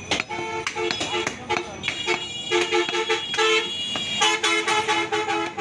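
A vehicle horn honking again and again in short and longer blasts, two steady notes sounding together. Sharp knocks of a cleaver on a wooden chopping block come through underneath.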